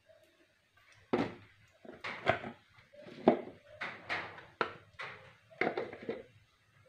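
A string of about eight sharp knocks and clatters, starting about a second in, like kitchen things being handled and set down.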